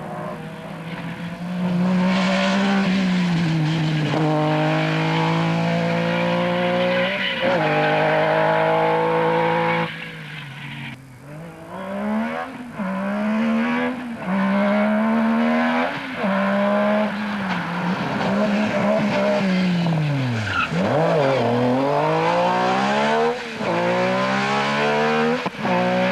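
Metro 6R4 rally car's V6 engine driven hard, its pitch climbing through the revs and dropping back at each gear change, over and over. About ten seconds in and again near twenty seconds the revs fall away sharply before it pulls up through the gears again.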